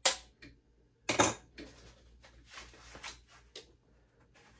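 Wire cutters snipping through a plastic zip tie: two loud sharp clicks about a second apart, followed by light scattered clicks of handling.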